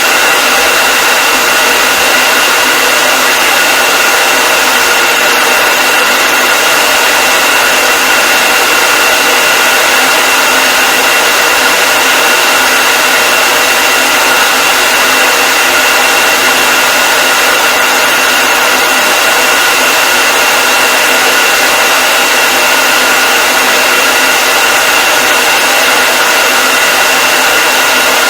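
Hair dryer running steadily: a constant rush of blown air with a steady high motor whine over it, unchanging throughout.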